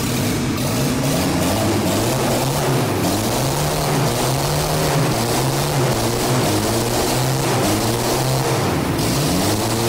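Car engine running with the webbing and counterweights cut off its crankshaft and no belts or accessories fitted, revved up and down several times by hand on the throttle cable. The revs climb quickly with each blip, showing the engine rev-happy from the lightened crankshaft.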